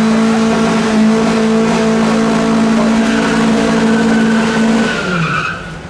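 A car engine held at steady high revs during a burnout, its spinning tyres throwing up smoke; about five seconds in the revs drop away.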